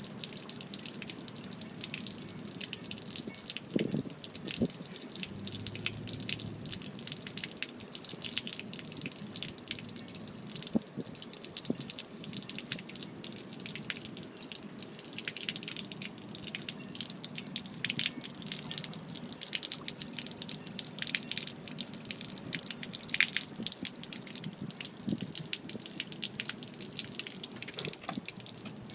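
Steady stream of water draining from a Mako Pro Skiff's hull drain and splattering onto pavement. The water has leaked into the hull during a day afloat with the live well and aerator unused, which the owner takes for a hull problem.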